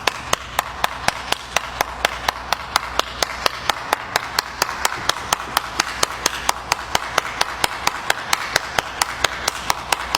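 A steady train of sharp clicks, about four a second, over an even hiss.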